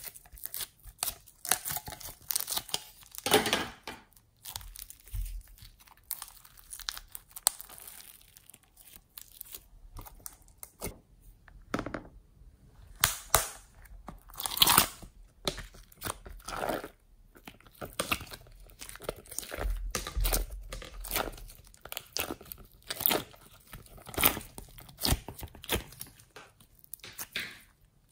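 Homemade slime being pressed out of plastic molds and squeezed and kneaded by hand: irregular sticky crackles and pops in quick bursts.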